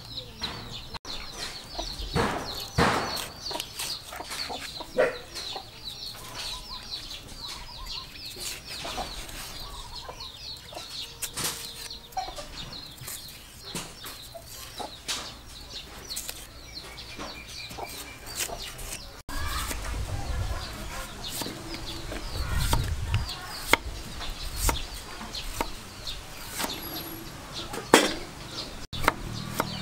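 Kitchen knife peeling the skin off a jicama, then cutting slices on a wooden chopping board, with scattered knife clicks and one loud strike on the board near the end. Chickens cluck in the background.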